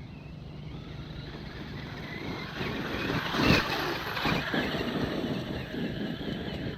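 Traxxas X-Maxx electric RC monster truck driving over icy ground, a rough, rising noise of tyres and chassis with a sharp knock about three and a half seconds in.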